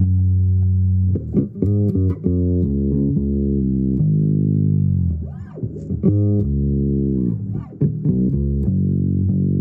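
Bass guitar played as an improvised line: sustained low notes that change pitch every half second to a second, with a few notes sliding up and down near the middle.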